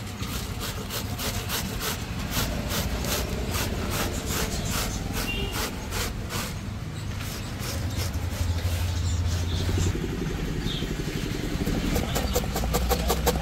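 Cabbage being grated on a flat stainless-steel hand grater into a steel bowl: a rasping scrape repeated about two to three strokes a second. Near the end come quicker knife chops through cabbage onto a wooden chopping board. A steady low rumble runs underneath.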